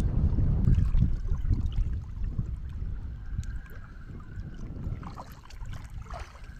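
Wind buffeting the microphone as a low rumble, strongest in the first two seconds and then dying down.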